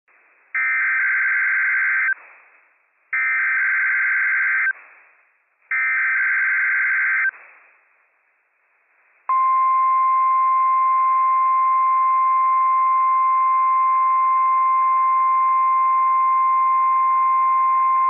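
NOAA Weather Radio Required Weekly Test signal. It opens with three short SAME digital header bursts, each about a second and a half long and about a second apart. About nine seconds in comes the long, steady single-pitch 1050 Hz warning alarm tone.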